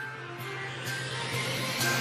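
Background music building up in level, with a rising whoosh sweeping up underneath held tones.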